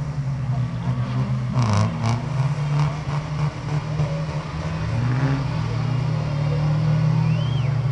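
Off-road jeep engine running steadily, its pitch dipping and picking up again as it works through mud, with a couple of sharp clatters about two seconds in.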